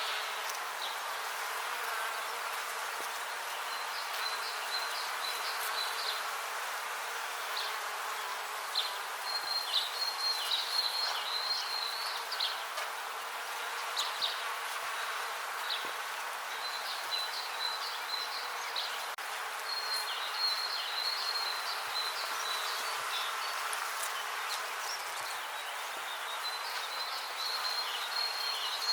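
Many bees buzzing steadily together, a dense, even hum. Clusters of quick high-pitched chirps come and go over it.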